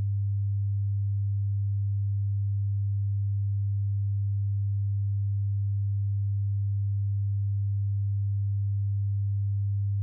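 Steady, unchanging low-pitched pure test tone: the line-up tone that runs under colour bars at the head of a broadcast tape.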